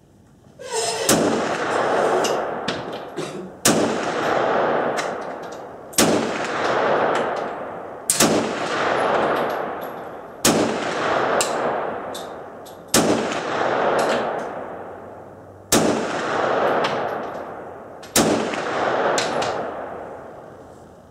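CZ-52 pistol firing 7.62×25 mm rounds in slow aimed fire: eight sharp shots, roughly one every two and a half seconds, emptying its eight-round magazine. Each shot rings on in a long echo under the shelter roof, with faint light clinks between some shots.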